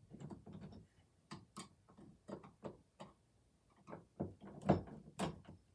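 Door handle hardware being spun tight by hand, giving a run of irregular clicks and ticks.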